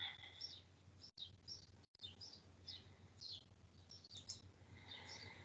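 Near silence with faint, short chirps of small birds repeating every half second or so, over a low steady hum; the audio cuts out completely twice, briefly.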